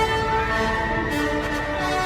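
Orchestral background music with held string notes that change pitch every half second or so.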